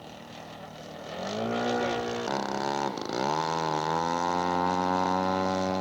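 Engine of a radio-controlled scale model airplane in flight. The engine note swells about a second in, sags in pitch near the middle, then climbs back and holds a steady pitch.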